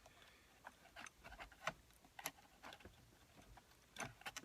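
Faint, irregular small clicks and taps as a cable connector is worked loose from the iMac's logic board, with a few quicker ticks near the end.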